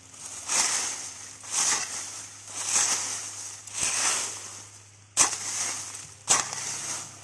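A hoe scraping through dry leaf litter and chopping into the soil, about one stroke a second. The first four strokes are rustling swishes; the last three are sharper hits into the ground.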